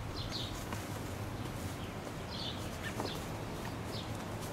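Small birds chirping now and then, short high calls a few times over a steady low outdoor background noise.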